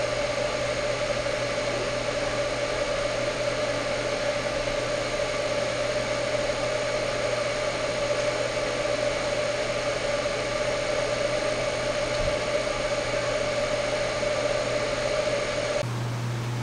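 Electric welding arc running steadily on a steel exhaust resonator's flange, an even hiss with a faint steady tone, stopping abruptly about a second before the end as the weld is finished.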